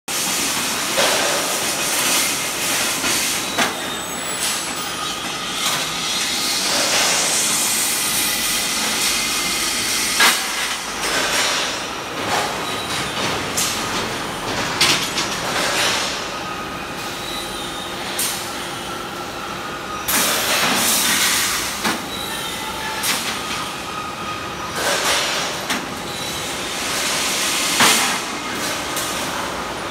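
Rebar cut-and-bend production line running: steady machinery noise with irregular clanks of steel bars striking rollers and racks, and a whine rising in pitch about six seconds in.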